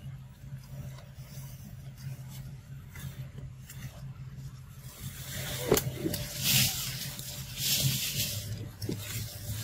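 Dry leaf litter and undergrowth rustling in two bursts in the second half, with a sharp click just before them, over a steady low hum.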